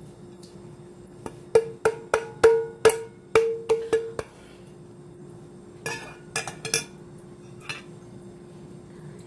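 Stainless steel bowl rapped against a glass salad bowl, making about nine ringing metallic knocks at roughly three a second. A few lighter clinks follow a couple of seconds later.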